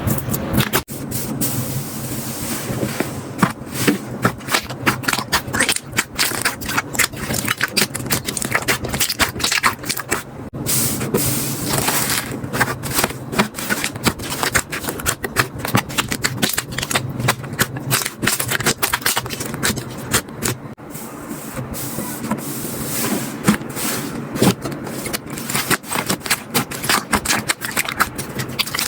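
Slime being squeezed and poked by hand, giving a dense, irregular run of crackles and pops.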